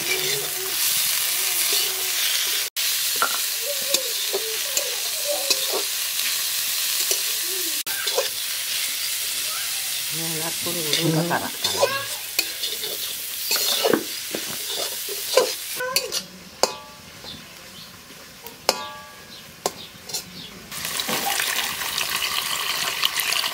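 Shredded banana flower and onions frying in oil in a metal kadai, sizzling steadily while a metal spatula stirs and scrapes the pan. The sizzle drops away for a few seconds, then a hissing rush returns near the end as water is poured into the pan.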